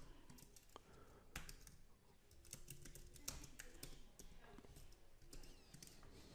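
Faint typing on a computer keyboard: irregular keystroke clicks.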